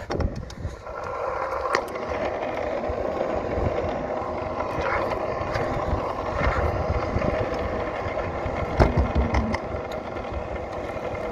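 Stunt scooter wheels rolling over rough asphalt, a steady rumble and hiss, with a few sharp knocks along the way.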